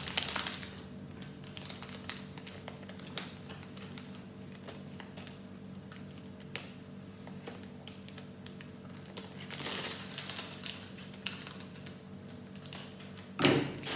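A plastic polybag being peeled off a paper magazine cover: faint crinkling and rustling of plastic and paper with scattered small clicks, over a low steady hum, and a louder rustle near the end.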